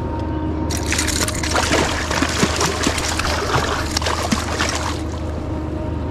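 Hooked striped bass thrashing in shallow water at the bank, a burst of splashing that starts about a second in and stops about four seconds later.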